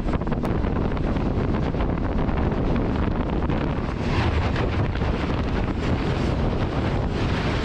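Passenger train running at speed, a steady rumble of wheels on rails, with wind buffeting the microphone.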